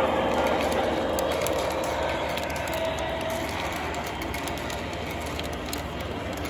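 Lionel O-gauge passenger train, an Amtrak diesel pulling Santa Fe streamlined passenger cars, rolling past close by: a steady rumble of wheels and motor on the track with many light clicks, easing off slightly as the cars go by.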